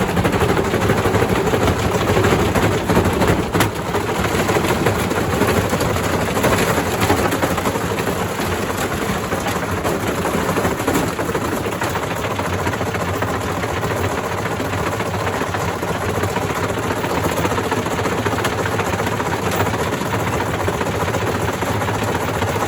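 Indesit IWDC6105 washer-dryer's drum spun by its hot-wired motor with a load of bricks inside: loud, continuous rumbling with dense clattering and banging of the bricks against the drum. It is roughest in the first several seconds, then settles into a steadier racket.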